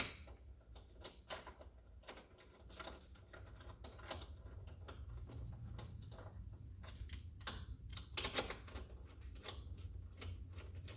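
Irregular light clicks and taps from lug nuts being put onto the wheel studs of an ATV track, hand-tight and not yet cranked down.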